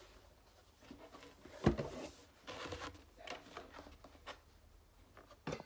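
Paper and cardboard being handled: irregular rustling and small taps, with a sharp knock about two seconds in and another near the end.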